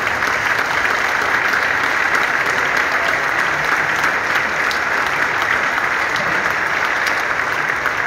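Audience applauding: a large crowd of seated people clapping steadily.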